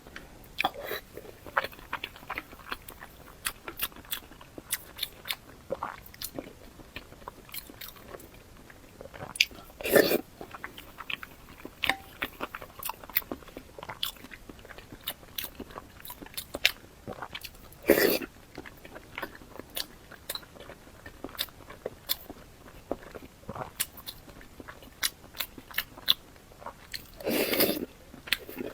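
Close-up eating sounds: steady chewing with many small clicks and crunches, and three louder bites about ten, eighteen and twenty-seven seconds in.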